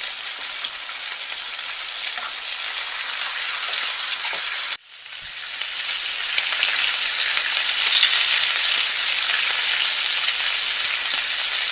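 Chopped beetroot frying with a steady sizzle in a non-stick kadai while it is stirred with a spatula. The sizzle drops out for an instant about five seconds in and comes back a little louder.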